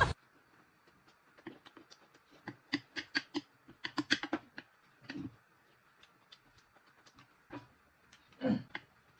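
Faint scattered clicks and taps of eating at a table, with a denser run of them about three to four seconds in.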